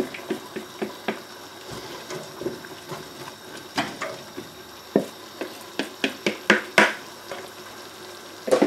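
Wooden spatula knocking and scraping against a plastic tub and a stainless steel stockpot as chopped onion is tipped in and stirred among the potatoes: irregular clicks and knocks, a few louder ones in the second half.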